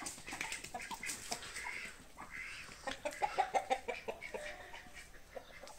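Chickens clucking, with a quick run of short clucks about three seconds in.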